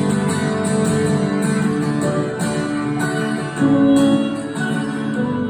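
Live band playing an instrumental passage with strummed guitar chords leading and no vocals.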